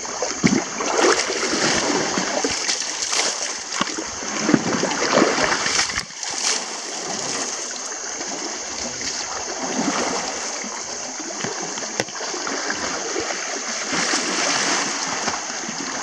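Shallow river water splashing and sloshing around wading legs, over the steady rush of the flowing river.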